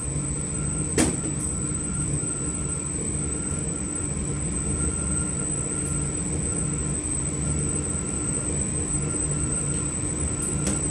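Steady whir of a clean bench's blower fan with a thin high whine, and a single sharp click about a second in.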